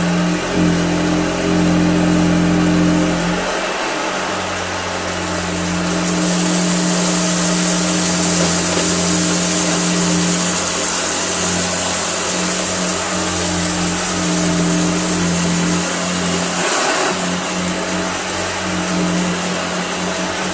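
Vintage Hoover Junior upright vacuum cleaner running over carpet, its motor giving a steady hum. A loud high rushing hiss swells in about six seconds in and eases off again near the end.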